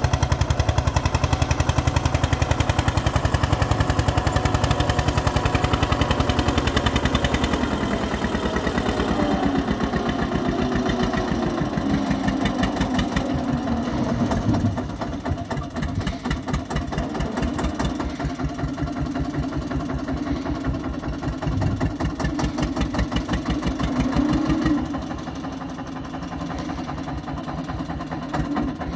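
Tractor's diesel engine running with a rapid, even thudding, its pitch rising and falling as it works under load, dragging soil with a rear scraper blade into a trolley. Loudest for the first several seconds, then a little quieter.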